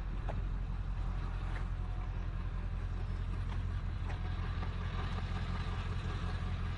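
Truck engine running steadily with an even low hum, a few faint clicks over it.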